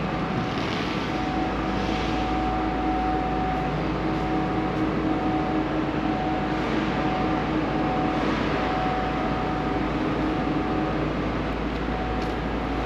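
Steady mechanical drone and hiss of car-park machinery, with a low hum and a higher steady tone running through it.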